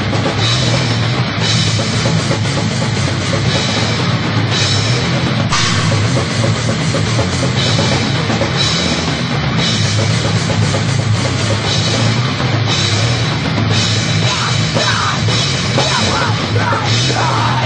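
A heavy metal band playing loudly, with a driving drum kit and cymbals over the dense full-band sound.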